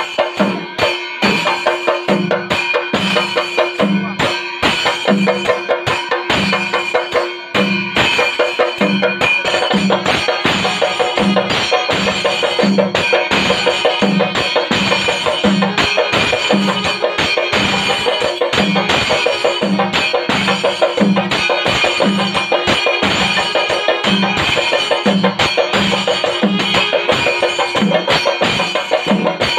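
Kerala temple percussion ensemble (chenda melam) playing a steady, loud beat: a deep drum stroke about every two-thirds of a second under rapid, sharper drum strokes.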